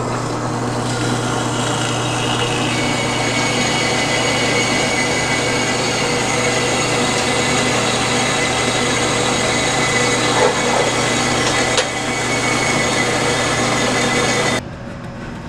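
Horizontal band saw cutting through thick round metal stock with coolant flowing over the cut: a steady running hum under the blade's continuous rasping hiss. The sound drops away suddenly near the end.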